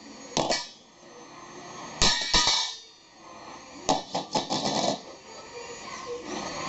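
Pot lids banged down on a floor, clanging and ringing: a few single strikes, then a quick run of several in the middle.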